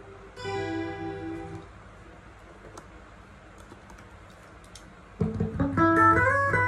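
Stratocaster-style electric guitar played through a Zoom GFX-8 multi-effects processor. A short phrase of single notes, then a pause of about three seconds, then louder notes with string bends from about five seconds in.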